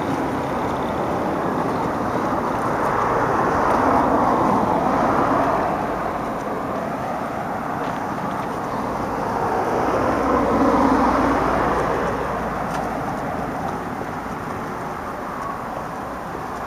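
Street traffic noise: cars passing on the road, the rush swelling louder twice, once a few seconds in and again just past the middle.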